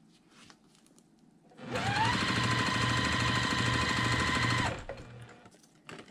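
Electric sewing machine stitching two quilt fabric squares together for about three seconds: it starts about two seconds in with a rising motor whine, runs steadily with fast, even needle strokes, then stops. A few faint clicks follow.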